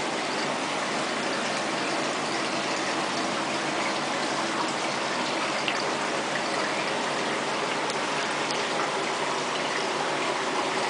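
Steady rush of running, splashing water, with a few faint ticks scattered through it.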